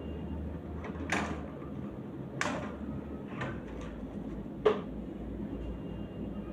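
About five short, sharp clicks or knocks at irregular intervals over a steady low hum, the last one the loudest.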